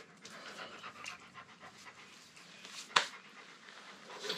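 A dog panting with quick, uneven breaths. A sharp click sounds about three seconds in.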